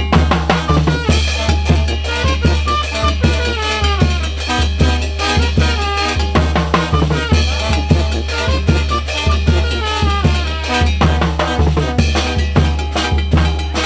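Band music: a drum kit keeping a steady dance beat with a strong bass line, and melody instruments playing over it, with no singing.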